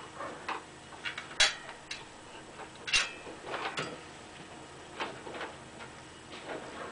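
Irregular clicks and light knocks of parts and tools being handled during a bicycle puncture repair, with two sharper clacks about one and a half and three seconds in.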